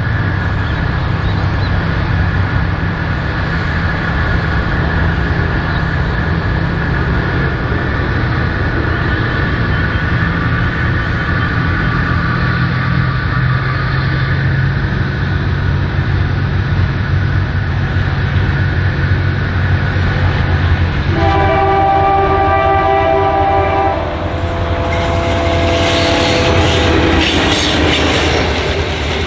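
Two diesel locomotives running light engine, 4911 leading L277, approach with a steady engine drone. About 21 s in, an air horn sounds for about three seconds. A second, lower horn note follows as the locomotives pass close, with wheel and rail noise rising.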